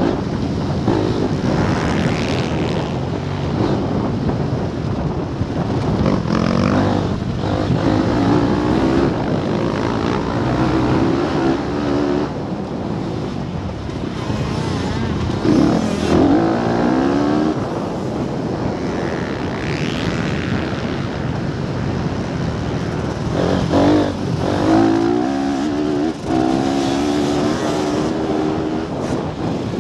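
Motocross bike engine under hard acceleration. Its pitch climbs and drops again several times as the rider opens the throttle and shifts gears.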